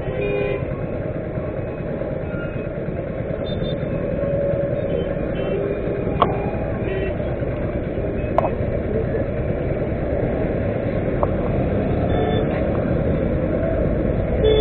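Road traffic waiting at a junction: a steady low rumble of idling motorcycles and passing vehicles, with faint horns in the distance. Two sharp clicks stand out, about six and eight seconds in.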